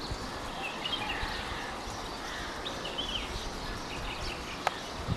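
Birds chirping in short, bending notes, several calls scattered over steady background noise. A single sharp click about four and a half seconds in.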